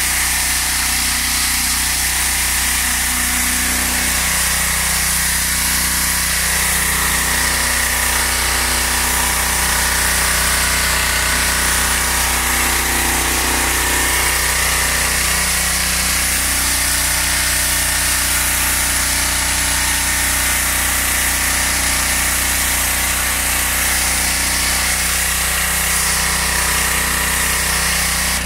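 Mechpro 7 hp petrol pressure washer running steadily under load, its engine note under the loud hiss of the high-pressure jet blasting the concrete.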